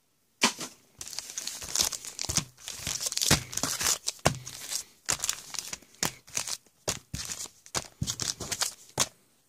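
Foil wrappers of Panini Prestige football card packs crinkling and crackling as the packs are handled and stacked, in quick irregular bursts with sharp snaps.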